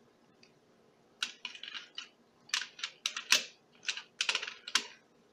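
Sharp clicks and light clatter of small hand tools being put away, a quick irregular run of hard taps starting about a second in and stopping near the end.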